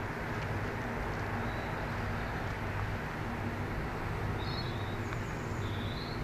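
Steady low rumble and hiss of railway-station ambience, with a few short high chirps about two-thirds of the way through.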